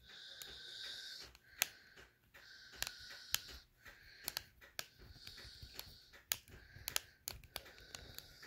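Faint, scattered clicks and taps of a small screwdriver working at the tiny screws of a Nintendo Switch, with soft hissing stretches of about a second at a time between them.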